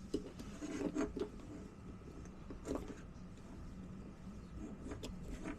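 A few light clicks and rustles from a ribbon cable and its plastic connector being handled and pressed into a crimp tool.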